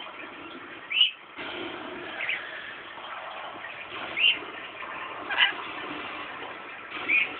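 Scaly-breasted lorikeet giving five short, shrill calls, spaced a second or two apart, over a steady background hiss.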